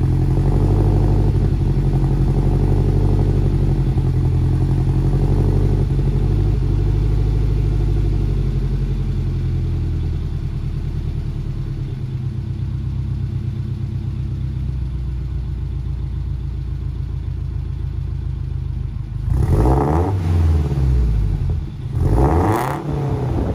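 Turbocharged Toyota GT86's flat-four boxer engine idling through a new 3-inch MAPerformance exhaust, settling a little quieter over the first dozen seconds. Near the end it is revved twice, up to around 4,000 rpm, and drops back to idle each time.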